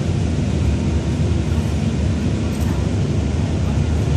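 Steady low rumble of engine and road noise heard inside a moving bus.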